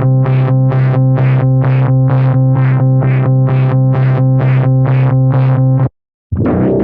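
Software synthesizer preset from the Arturia V Collection: a held low note pulsing evenly about three times a second. It cuts off about six seconds in, and after a brief gap a different sustained synth tone begins.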